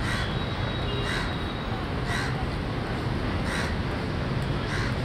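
A hand rasp scraping across a rubber two-wheeler inner tube in short strokes about once a second, roughening the rubber around the puncture so a patch will stick. Under it runs a steady low rumble of street traffic.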